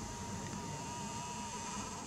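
A Nikon superzoom camera's lens motor whining steadily as it zooms out, cutting off right at the end, over a steady hiss of outdoor background.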